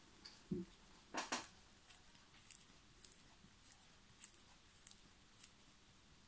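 Faint clicks from an Epos watch's crown and movement as the crown is turned to advance the hands, coming about every half second. A soft knock about half a second in and a short cluster of sharper clicks just after one second.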